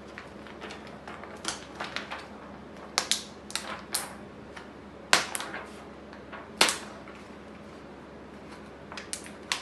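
Thin transparent plastic sheet crackling and clicking as it is pushed over the pegs of a plastic face-shield frame. It gives irregular sharp clicks and snaps, the two loudest about five and six and a half seconds in.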